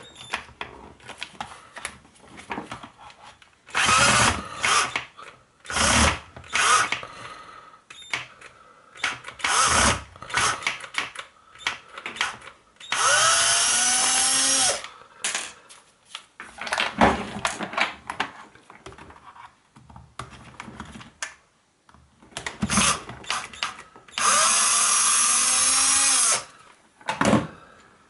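Sparky cordless drill-driver with a T15 Torx bit backing out the housing screws of a rotary hammer, in a string of short whirring runs and two longer runs of about two seconds. Its motor pitch rises as it spins up. Clicks and knocks of handling fall between the runs.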